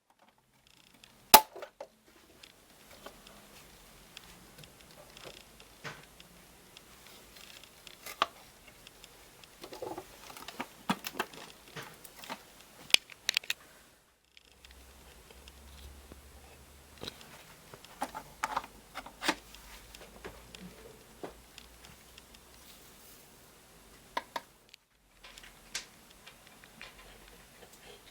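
Laundry being loaded into a washing machine: irregular clicks, knocks and rustling as the clothes and the machine are handled, with one sharp knock near the start.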